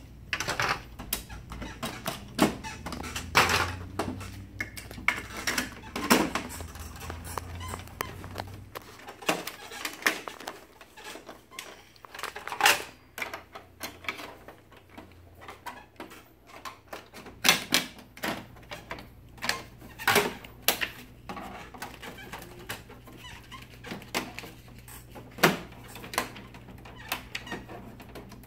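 Plastic covers and panels of an HP laser printer clicking and knocking irregularly as they are pressed and handled by hand to seat them with tight seams. A low steady hum underneath stops about nine seconds in.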